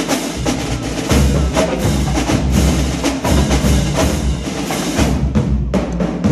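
Marching drumline playing a fast cadence together: snare and tenor drums, bass drums and crash cymbals. About five seconds in the dense playing thins to a few separate hits, and it stops near the end.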